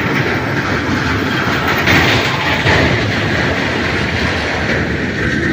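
Steel deck plates of a pontoon bridge rattling and clattering in a loud, steady rumble, the noise the iron bridge makes when vehicles cross it.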